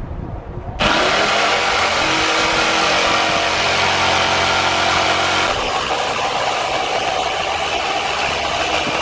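Electric jigsaw starting up about a second in and cutting through a wooden board, the motor running with the blade sawing steadily; the sound shifts a little past halfway as the cut goes on.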